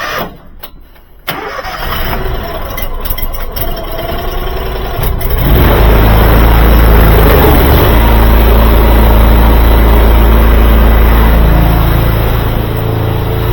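Engine of a drain jetting machine running, coming up to a loud, steady rumble about five seconds in.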